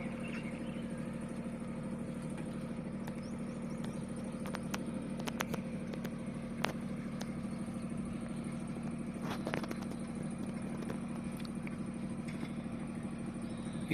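Trailer-mounted generator running steadily with a low hum, with a few faint clicks and knocks scattered through it.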